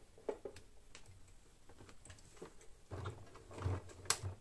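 A few light clicks and taps as leather is handled under the presser foot, then a Janome Memory Craft 6700P sewing machine starts stitching faux leather about three seconds in, running with a low, rhythmic hum, with a sharp click near the end.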